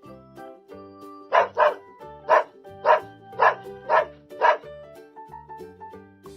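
A dog barking about seven times, roughly twice a second, over light background music.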